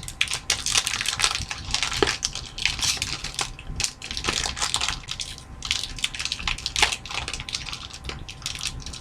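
Foil booster-pack wrapper crinkling and crackling as it is squeezed and pulled at by hand, an irregular run of small crackles and rustles while the tightly glued seam resists opening.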